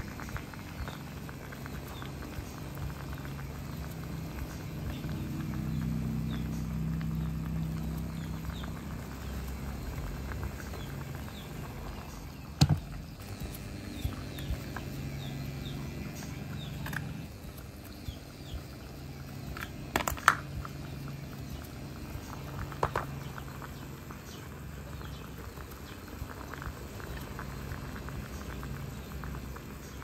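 Water simmering in a small frying pan heated by a homemade induction coil, a faint bubbling crackle over a steady low electrical hum, with a few sharp clicks, the loudest near the middle.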